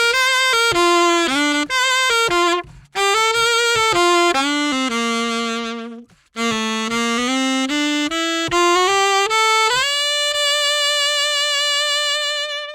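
Solo saxophone, played on a 2.5-strength reed, playing a single melodic line in three phrases, with short breaks about three and six seconds in. The last phrase ends on one long held note.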